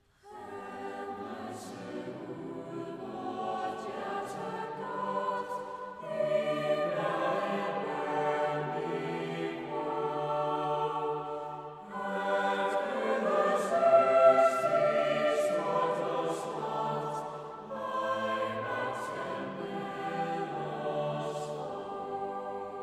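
Mixed youth choir singing a cappella, entering together at the start and moving in phrases of about six seconds with short breaks between them.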